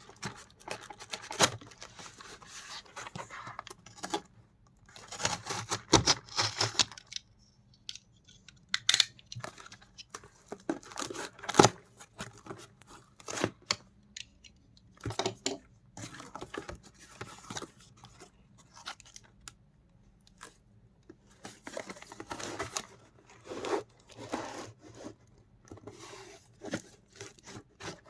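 Pen packaging being torn open and handled: bouts of tearing and rustling with scattered sharp clicks and taps.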